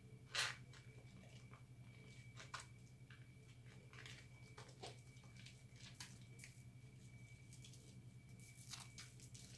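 Faint wet squishing and scattered little clicks of soapy hands rubbing and turning a bar of recycled soap into a lather. The sharpest click comes about half a second in, over a steady low hum.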